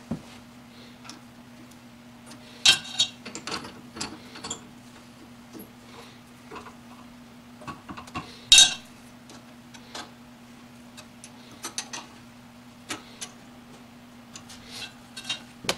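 Metal parts and hand tools clicking and clinking as a mortising chisel and bit are fitted into a drill press chuck and its clamp-on mortising attachment. There are two louder metallic clanks, about three seconds in and again about eight and a half seconds in, over a steady low hum.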